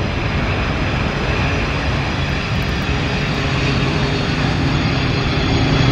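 Boeing 747-400 airliner's four jet engines running on the runway, a loud, steady and even rush of engine noise.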